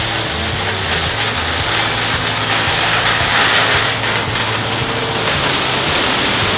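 Gravel pouring off the raised bed of a dump truck into a pile, a steady rushing rattle that swells in the middle, with the truck's engine running underneath.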